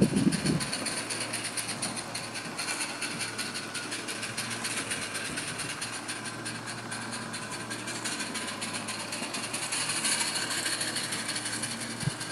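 Gas-fired live-steam garden-railway locomotive running on its track: a fast, even stream of small exhaust beats over a steady hiss and a low hum. It grows a little louder about ten seconds in.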